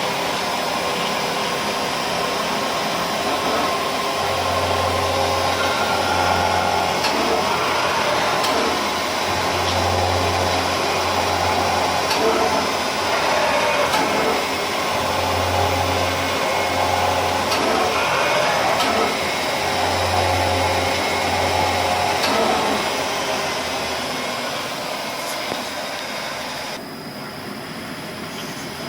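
Pratt & Whitney Tapemate C CNC mill, retrofitted with AC servos, running a program on an aluminium part: steady spindle and cutting noise with rising and falling sweeps. A low hum comes in pairs about every five seconds as the axes repeat their passes. The high hiss falls away near the end.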